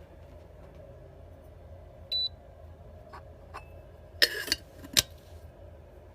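A single short, high electronic beep from the control panel of a Willow and Everett electric gooseneck kettle, the kind it gives when a button is pressed. It is followed by a few sharp clicks and a brief clatter of hard parts being handled.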